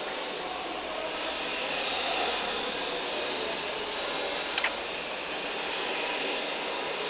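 Geotron angular motor running steadily with a whirring, fan-like noise, with one sharp click a little past halfway.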